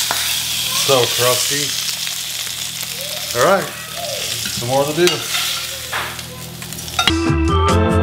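Meat sizzling in hot fat in a stainless steel frying pan while the pieces are turned and lifted out with a spatula. A few short squeaks come about 1, 3.5 and 5 seconds in as the pan and utensils are moved.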